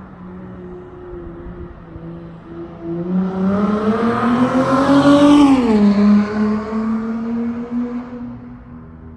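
Dodge Charger SXT with a Flowmaster Super 10 muffler driving past under acceleration: the exhaust note rises in pitch and loudness as it approaches, drops in pitch as the car goes by a little past halfway, then fades away.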